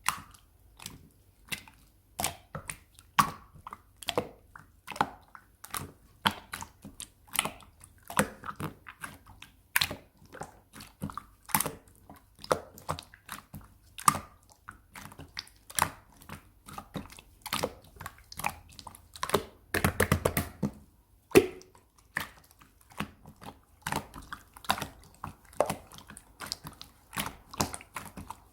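A long series of irregular clicks and taps, several a second, with a brief denser flurry about two-thirds of the way through.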